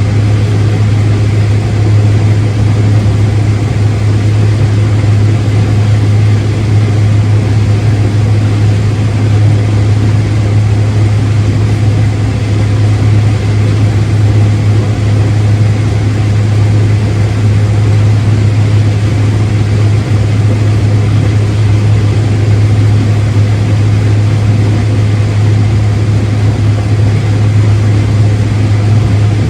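Steady drone of a heavy farm machine's diesel engine running at constant speed, with a strong, unchanging low hum.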